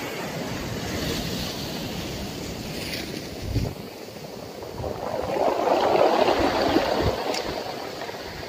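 Surf breaking and washing up the beach, with wind buffeting the microphone in low thumps. The wash swells louder about five seconds in and eases off after about seven.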